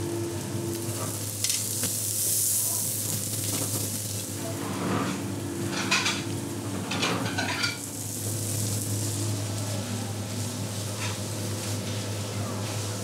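Metal tongs clicking and scraping against a slate serving board as grilled food is laid out, with a cluster of sharp clicks about five to eight seconds in, over a steady kitchen hiss and low hum.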